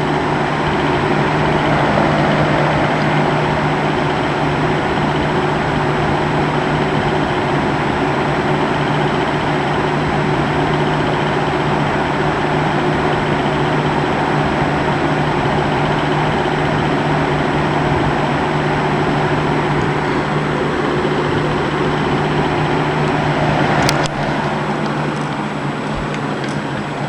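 Box fan running steadily, a whooshing rush of air with a steady low hum. About 24 seconds in there is a single sharp click, and the sound turns slightly quieter after it.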